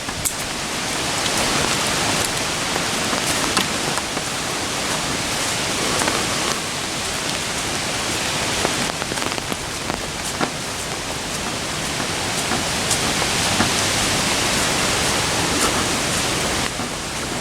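Steady rain falling, with scattered sharper drop hits standing out from the hiss.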